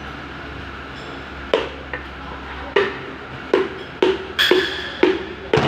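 A series of about seven sharp metallic clanks and knocks, irregularly spaced and each ringing briefly, from metal engine parts and tools being handled during an engine teardown.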